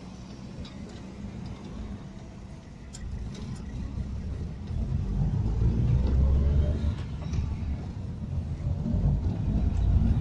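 Car driving, heard from inside the cabin: a low rumble of engine and road noise that grows louder about halfway through.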